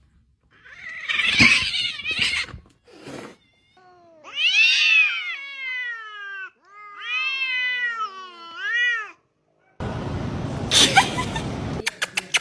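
Cats caterwauling: after a noisy burst, a cat gives two long drawn-out yowls that rise and fall in pitch, the sound of two cats facing off. Near the end come about two seconds of rushing noise and a few sharp clicks.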